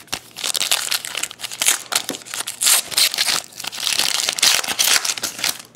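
Foil wrapper of a 2011 Prestige football card pack being torn open and crinkled by hand: a dense, continuous run of crackling and crinkling.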